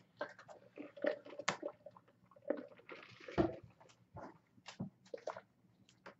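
Faint, scattered clicks and soft rustles of trading cards and card packaging being handled, with a slightly longer rustle about three seconds in.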